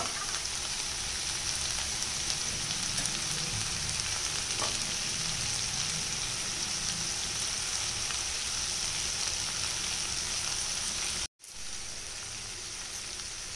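Vegetables and soya chunks frying in oil in a kadai, a steady sizzle. The masala has cooked down until the oil separates. The sizzle cuts out for a moment about eleven seconds in, then goes on a little quieter.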